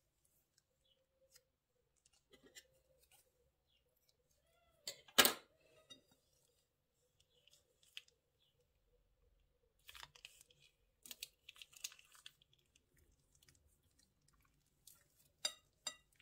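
Plastic bags and slime being handled, giving scattered crinkles and crackles: one loud crackle about five seconds in, then clusters of crackling about ten to twelve seconds in and near the end.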